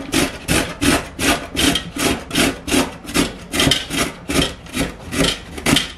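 A carrot being grated by hand on a stainless steel box grater: an even run of rasping strokes, about three a second.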